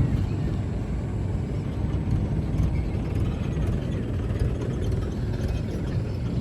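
Steady low rumbling wind noise buffeting the microphone, with no distinct events.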